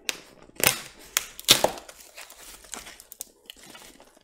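Cardboard shipping box being pulled open by hand: packing tape tearing and cardboard flaps crinkling. Several sharp rips come early, the loudest about a second and a half in, then quieter crackling and rustling.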